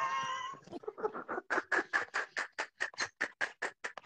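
A drawn-out, wavering high voice-like cry, then fast, even bursts of laughter at about five a second.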